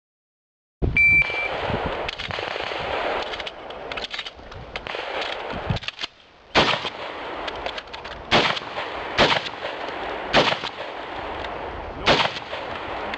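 Shot timer's start beep, then five shotgun shots about a second or two apart through the second half.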